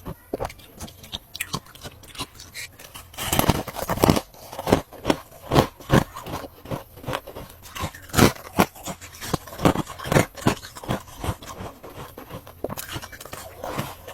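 Ice being bitten and crunched between the teeth: a run of sharp, irregular crunches, thickest in the middle stretch.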